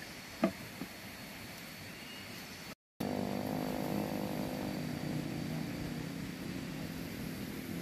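A machete chops into a dry wooden stick twice, sharply, about half a second and a second in. After a break, a distant engine drones steadily at an even pitch.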